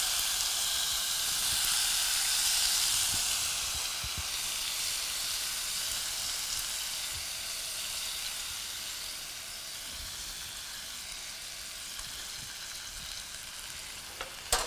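Chicken breasts basted with an oil-based glaze sizzling in a hot skillet, the meat freshly laid in the pan. The sizzle is loudest at first and slowly dies down.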